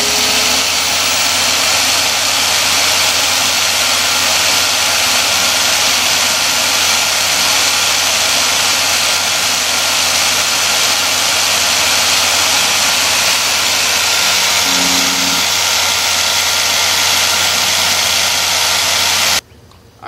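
Electric car polisher running unloaded at speed 5, spinning a wet foam buffing pad so that centrifugal force flings the water out, a loud steady whir. It cuts off suddenly near the end.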